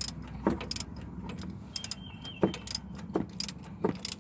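Ratchet socket wrench clicking in short bursts, about every half second, on its return strokes while a pulley mounting bolt is being loosened.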